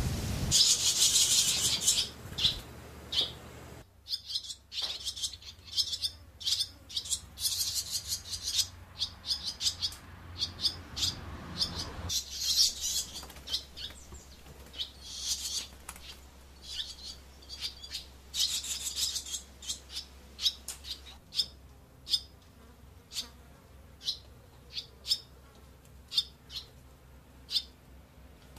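For the first few seconds, the dense rushing sound of a huge Baikal teal flock in flight. After a brief break, fledgling barn swallows chirp and twitter in short, high calls, now singly, now in quick runs.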